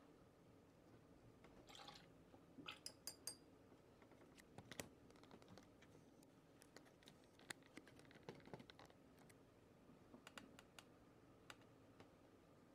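Faint, scattered light clicks and taps of a paintbrush and plastic watercolour palette being handled, a few of them ringing briefly, with a short rustle about two seconds in.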